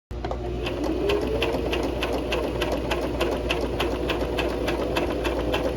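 Electric sewing machine stitching slowly: a steady motor hum with the needle mechanism ticking about four times a second.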